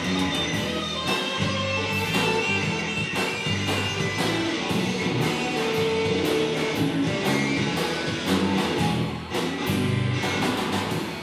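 Live band playing a blues shuffle: electric guitars over bass guitar and a drum kit keeping a steady beat.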